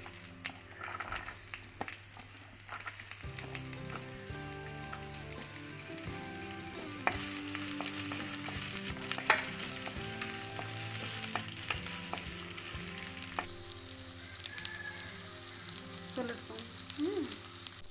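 Small onions (shallots) sizzling in hot sesame oil in a clay pot, along with the tempering spices, as they are stirred with a spatula that scrapes and taps now and then. The sizzle grows louder about seven seconds in.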